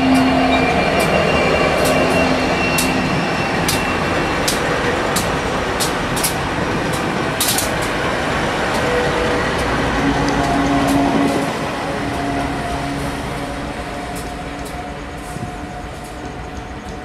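Three coupled diesel-electric locomotives (TT, 92 and CF class) running past with their engines humming steadily and the wheels clicking sharply on the rails. The sound fades away over the last few seconds as the locomotives move off.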